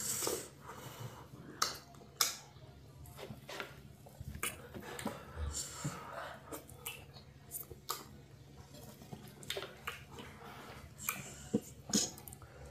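Close-up eating sounds of oats fufu and okra soup eaten by hand: scattered wet smacks and clicks of chewing and lips, with fingers working the food on the plates. Fairly quiet and irregular.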